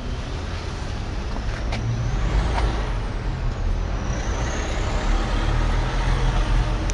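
Low rumble of a heavy road vehicle's engine that grows louder, with a thin high squeal wavering in pitch from about two to five seconds in.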